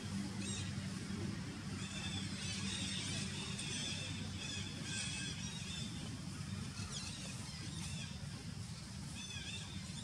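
Repeated short, high-pitched chirping calls in scattered bouts over a steady low hum.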